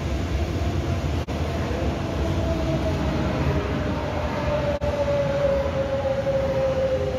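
TRA EMU500 electric multiple unit arriving: the whine of its GTO-VVVF traction inverter falls slowly in pitch as the train brakes, over a steady rumble of wheels on track.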